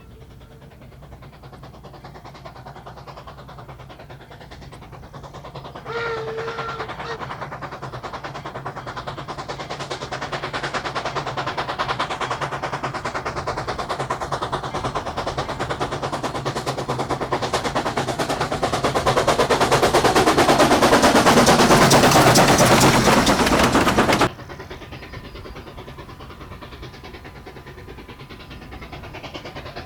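Baldwin K-27 narrow-gauge 2-8-2 steam locomotive working toward and past the microphone, its rapid exhaust beats growing steadily louder. It is loudest just before the sound cuts off suddenly about 24 seconds in. A fainter, steadier train sound follows.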